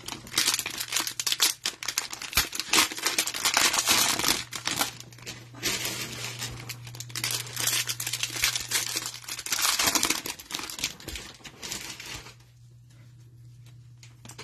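Plastic cellophane wrapper of a trading-card pack being torn open and crinkled by gloved hands. Dense rustling and crackling stops about twelve seconds in, leaving only a low steady hum.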